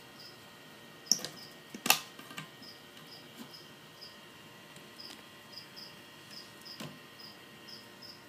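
A cricket chirping in repeated short high chirps, a few a second, over a few sharp knocks, the loudest about two seconds in.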